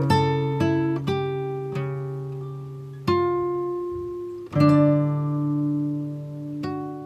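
Background music of slow plucked-string notes and chords, each left to ring out, with fresh chords struck about three and four and a half seconds in, fading toward the end.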